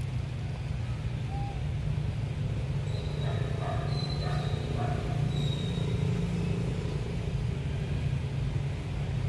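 Steady low rumble of outdoor background noise, with a few faint, brief higher tones around the middle.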